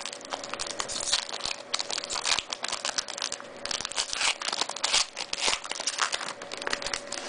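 A trading-card pack wrapper crinkling and being torn open by hand, a dense irregular crackle.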